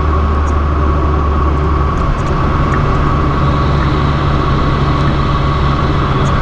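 Fiat 500 Abarth's turbocharged 1.4-litre four-cylinder running through an aftermarket MPx cat-back exhaust while driving, with road noise. It is a steady drone that steps up in pitch about two seconds in.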